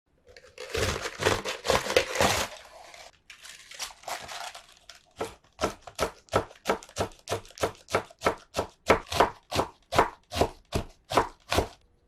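Crisp crunching and crackling for the first couple of seconds, then a softer rustle. From about five seconds in, a kitchen knife chops steadily on a cutting board, about three strokes a second.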